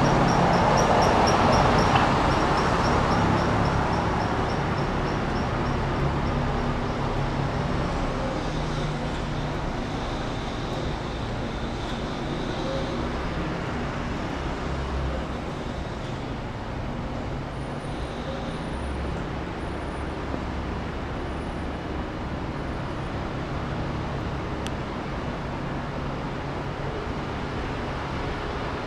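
Downtown street traffic: a passing vehicle is loudest at the start and fades away over the first several seconds, leaving a steady low hum of engines and street noise.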